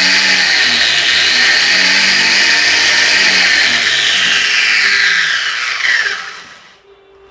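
Electric motor of a WAP Super pressure washer running at full speed with a loud, wavering high whine, then switched off about five and a half seconds in and spinning down with falling pitch until it stops.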